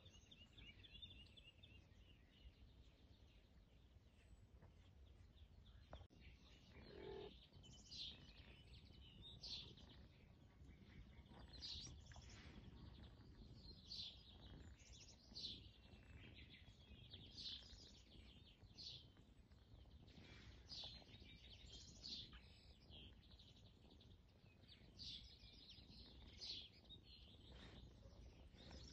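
Faint bird chirps over quiet outdoor background hiss: short, high calls repeating every second or two, starting about a quarter of the way in.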